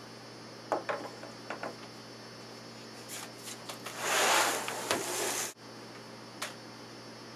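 Wooden boards and an adjustable wooden mold handled on a wooden worktable: a few light knocks, then about a second and a half of loud sliding and rubbing about four seconds in that stops abruptly, and one more knock.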